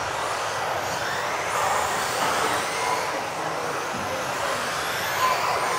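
Several electric off-road RC cars racing around the track: a steady wash of motor and tyre noise with high-pitched motor whines rising and falling as the cars speed up and slow down.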